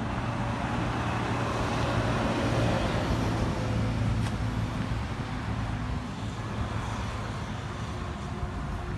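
Road traffic noise: a motor vehicle's engine hum with road noise. It swells about two to three seconds in and eases off after about six seconds.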